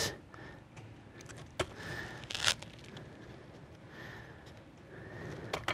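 Faint handling sounds as red sanding discs are pressed by hand onto the hook-and-loop pads of a Bona FlexiSand PowerDrive buffer, with a sharp click about a second and a half in and a short scratchy rustle a second later.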